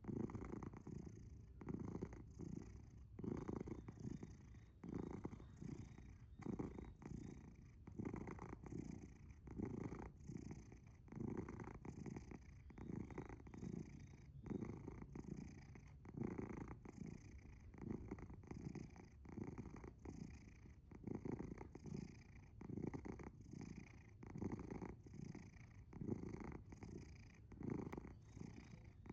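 Sleeping tabby cat purring loudly, a coarse rumble that swells and fades with each breath about once a second; the owner wonders whether it is purring or snoring.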